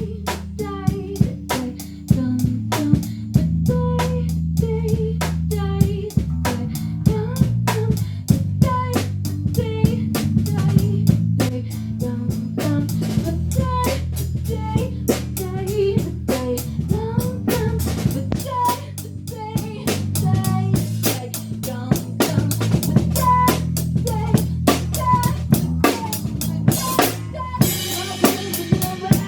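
Band music: a drum kit keeps a steady beat under a bass line, with short melody notes that bend slightly in pitch over the top.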